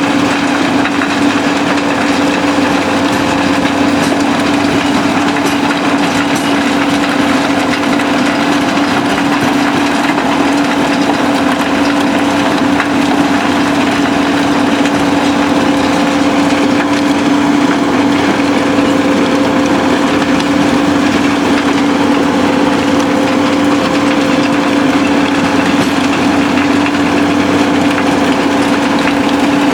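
SBM impact crusher running steadily while crushing concrete, a constant hum under a dense, even noise of rubble being broken, mixed with diesel machinery engines.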